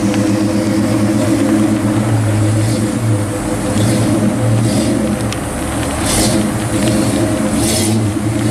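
Pontiac GTO Judge's V8 idling, its exhaust note pulsing unevenly.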